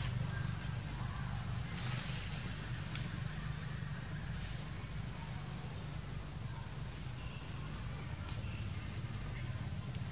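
Outdoor ambience: a steady low hum under a bird repeating a short, high chirp about once a second.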